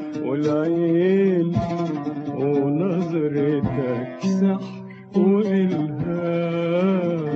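Male voice singing a long, wavering Arabic melody in maqam Kurd, accompanied by plucked oud.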